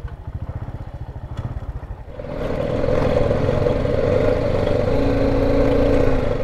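Single-cylinder engine of a BMW G310 GS motorcycle idling with an even low pulse, then about two seconds in it grows louder as the bike rides along a dirt forest track, engine running under way with wind and road noise.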